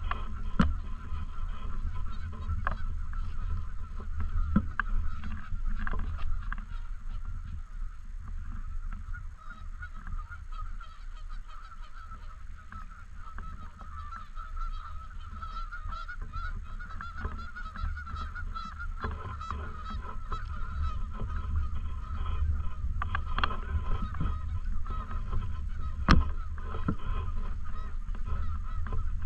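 A flock of Canada geese honking continuously, many calls overlapping, with a steady low rumble underneath. Two sharp clicks cut through, one just after the start and a louder one near the end.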